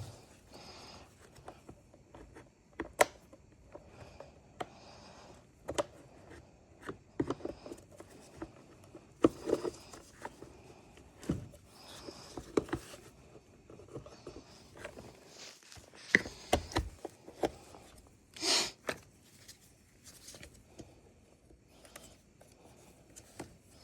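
Intermittent clicks, taps and scrapes of hands handling and working on chainsaw parts, with a short rushing noise about three-quarters of the way through.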